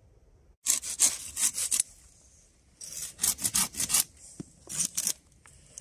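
Folding pruning saw cutting through a thin branch by hand: three runs of quick back-and-forth strokes with short pauses between them, the last run only two strokes near the end.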